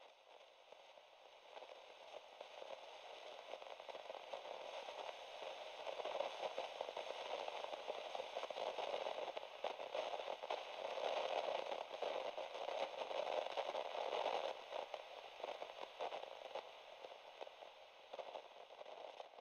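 Model trains running on the layout's track: a rattling, crackling noise that swells over the first few seconds and fades near the end.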